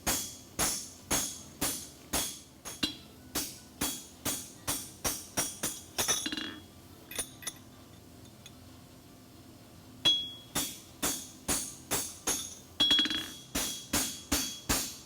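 Farrier's hammer striking an aluminum bar shoe on the anvil, steady blows about two to three a second, working the metal flat. The blows stop for a few seconds midway, apart from two light taps, then resume with a hard strike.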